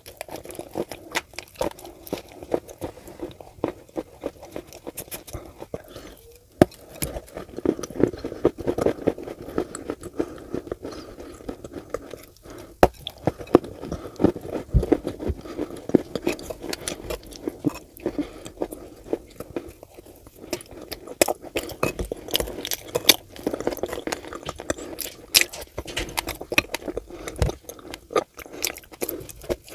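Close-miked mouth sounds of someone biting and chewing a thick wet paste of Turkestan clay: many irregular sticky clicks and smacks, with no steady rhythm.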